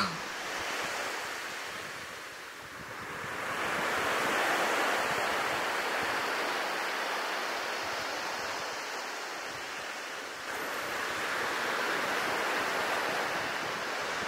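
Sea waves washing onto a beach, a steady surf that swells and eases: it builds about three seconds in and again near the end.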